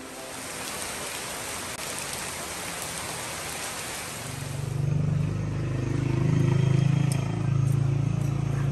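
Heavy rain pouring onto a wet paved street, an even hiss. About four seconds in it gives way to a louder steady low hum.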